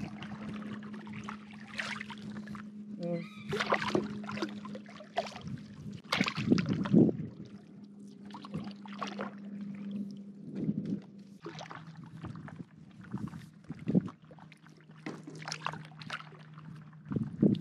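Paddle strokes splashing and dripping beside a stand-up paddle board, one about every one to two seconds, over a faint steady low hum.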